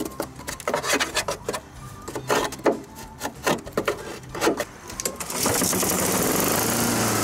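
A hand scraper scraping caked grass clippings off the underside of a Honda mower deck in short, irregular strokes. About five seconds in, the scraping stops and a steady, even sound takes over.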